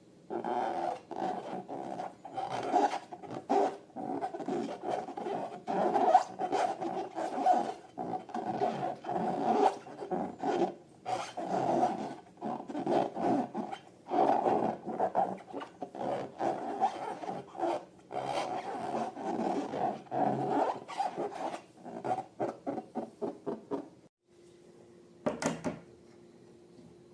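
Slime and rubber balloons being worked by hand: many short, irregular rubbing strokes with a squeaky edge. They stop about three seconds before the end, with one more brief stroke just after.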